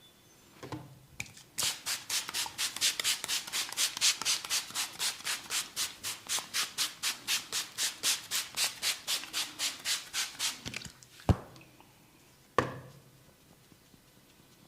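Barber's hands rubbing briskly in a massage, about four strokes a second for around nine seconds. Then two sharp snaps about a second apart.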